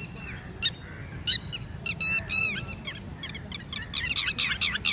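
Red-wattled lapwing calling: sharp, high-pitched notes, a few spaced ones at first, then a fast run of calls from about four seconds in.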